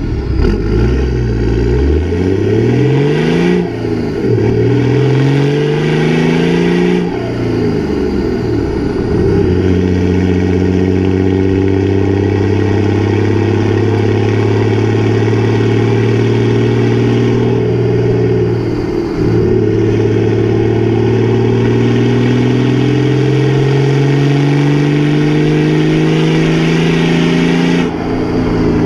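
Toyota 1HD-FTE 4.2-litre turbo-diesel straight-six in a 100 Series Land Cruiser, running through a straight-through 3-inch exhaust with no mufflers. It pulls through the gears, its note climbing and falling back at gear changes about 3.5 and 7 seconds in. It then holds a steady note while cruising, dips briefly, climbs slowly again, and falls back at another shift near the end.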